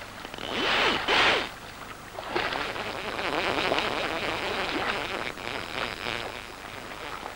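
Fly reel's click ratchet clicking rapidly as line runs through it while a hooked trout is played: a short burst about a second in, then a longer run of fast clicks.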